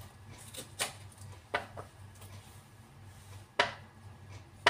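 Oranges being cut in half with a knife on a cutting board: four sharp knocks of the blade on the board, unevenly spaced, with the last one loudest, over a low steady hum.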